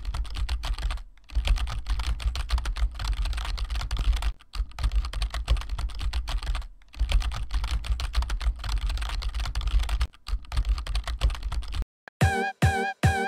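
Fast computer-keyboard typing: a dense run of key clicks broken by a few short pauses, stopping about twelve seconds in. A choppy music intro with a few held tones starts right after.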